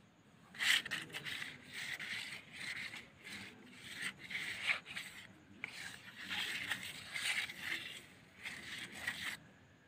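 A colouring stick rubbed and scraped across paper in quick repeated strokes, starting about half a second in and stopping shortly before the end.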